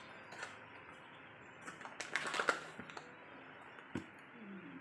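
Cardboard carton being opened and a foil pouch pulled out of it: a short cluster of crinkling and tapping about two seconds in, then a single knock near four seconds.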